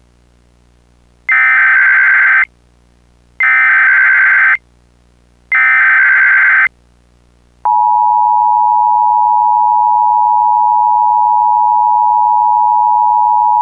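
Emergency Alert System SAME header: three bursts of digital data tones, each about a second long with about a second between them. About eight seconds in comes the steady two-tone EAS attention signal (853 and 960 Hz), which keeps going. Together they open an EAS Required Monthly Test.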